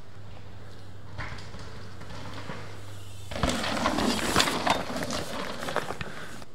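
Mountain bike tyres skidding and scrubbing through loose dirt in a hard corner, with spraying dirt and grit and sharp rattles from the bike. It starts faint and becomes loud and rough about three seconds in, then fades near the end, over a steady low hum.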